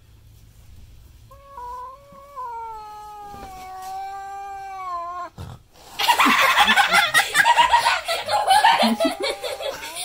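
A frightened cat yowling: a long, drawn-out yowl that slides slowly down in pitch, then about six seconds in a much louder, harsh, noisy screech lasting about three seconds.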